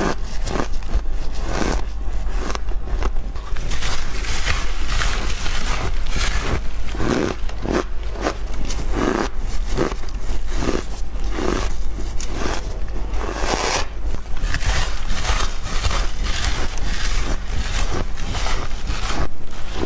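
Refrozen shaved ice being bitten and chewed, with dense, irregular crunches many times a second, over a steady low hum.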